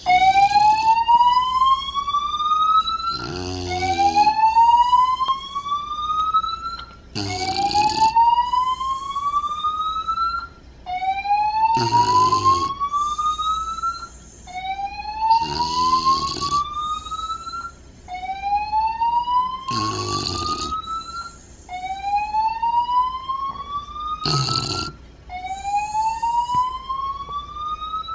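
Apartment building fire alarm sounding a repeating rising whoop during a periodic system test, a new sweep about every three and a half seconds. Over it an English bulldog snores, one rough snore about every four seconds, competing with the alarm.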